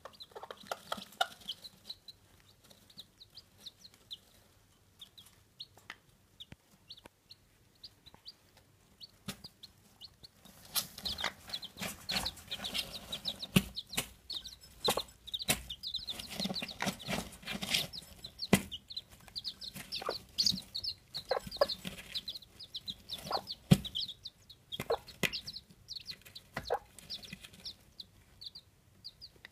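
Chabo (Japanese bantam) chicks peeping, many short high chirps that are sparse at first and grow busy from about ten seconds in, with a hen's low clucks underneath and scattered sharp taps in the straw.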